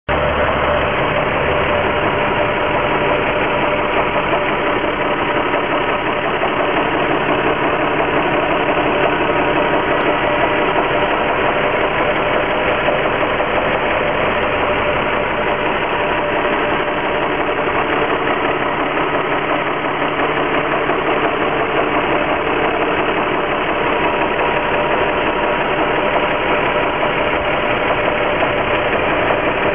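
Infiniti G35x's 3.5-litre V6 engine running steadily, likely at idle, with the knock/ping that the owner hears from the engine bay.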